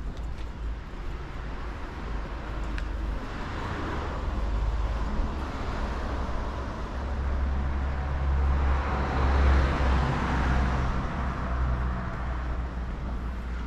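Road traffic: two vehicles pass, one about four seconds in and a louder one around nine to ten seconds in, each swelling and fading, over a steady low rumble.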